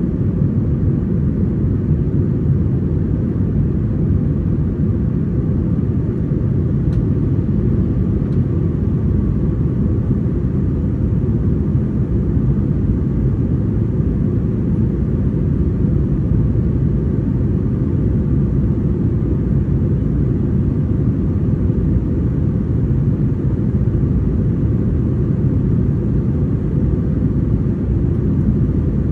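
Airbus A321-231 cabin noise in flight: its IAE V2500 jet engines and the airflow make an even, steady low rumble.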